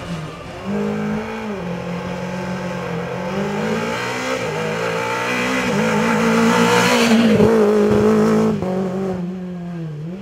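Rally car engine running at high revs on a special stage, its note dipping briefly several times and climbing again. It is loudest as the car comes close, about six to eight seconds in, then drops away suddenly.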